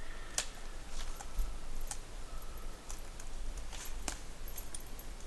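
A dog chewing on a stick: a few sharp wood cracks and clicks at uneven intervals, over a low steady rumble.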